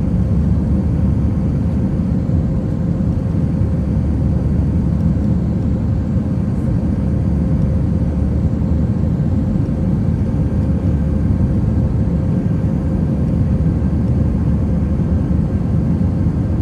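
Airbus A319 jet airliner heard from inside the cabin during departure: a loud, steady drone of engines and airflow with a constant hum running through it.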